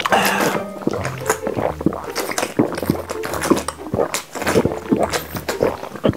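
Background music with gulping and liquid sounds as drinks are swallowed from small plastic bottles.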